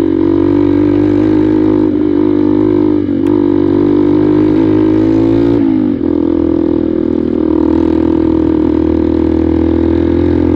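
Single-cylinder 150 cc Honda NXR 150 Bros dirt bike engine running at a steady cruising pace on a dirt road. The engine note dips briefly about two, three and six seconds in, as the throttle eases and picks up again.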